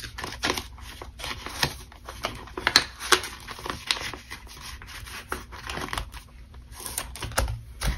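Paper banknotes and a clear plastic binder envelope crinkling and rustling as a folded stack of bills is slid into the envelope's pocket, in many short, irregular rustles and clicks.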